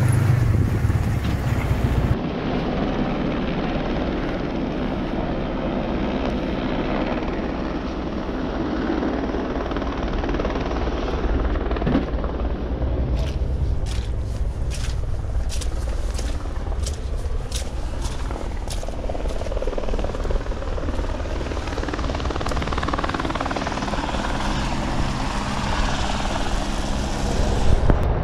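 A small boat's outboard motor running steadily under way, with brief crackling bursts of wind or water noise about halfway through.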